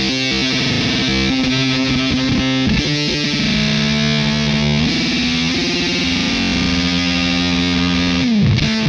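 Electric guitar played through a Fender Shields Blender octave-up fuzz pedal: held, heavily distorted notes that change every second or so. Near the end the pitch dives down sharply.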